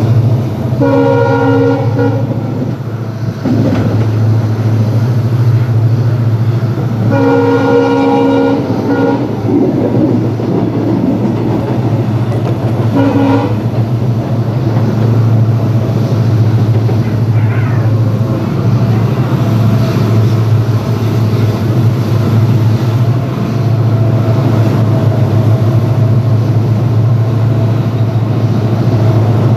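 WDG4 diesel locomotive's horn sounding three times: a blast about a second in, a longer blast about seven seconds in, and a short toot about thirteen seconds in, over the steady rumble of the moving train.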